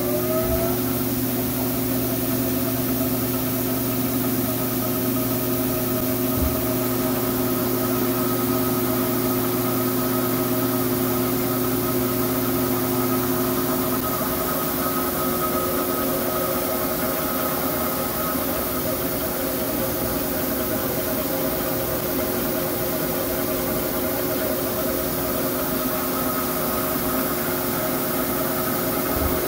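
Mori Seiki SL-6B CNC lathe running with its spindle turning the chuck: a steady mechanical whine with several held tones, levelling off at speed about half a second in. A low hum beneath drops away about halfway through.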